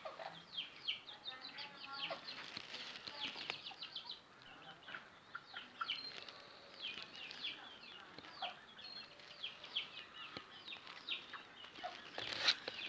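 Chickens calling: a continuous run of short, high, falling peeps, several a second and overlapping.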